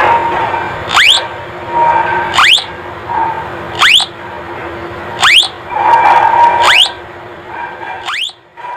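Homemade BC548 transistor doorbell oscillator sounding through a small speaker: a quick rising chirp repeated about once a second over a steady tone. It fades near the end.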